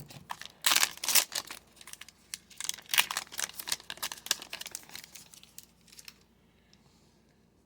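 2020-21 Upper Deck SP Hockey pack wrapper being torn open and crinkled, a dense crackle that stops about six seconds in.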